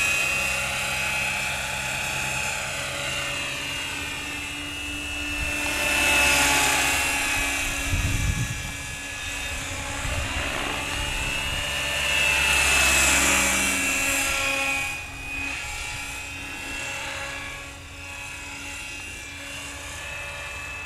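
Compass Atom 500 electric RC helicopter in flight, running on a nine-tooth pinion for gentle flying. Its motor and rotor whine swells and bends in pitch as it passes about 6 and 13 seconds in, then grows fainter as it moves away for the last few seconds.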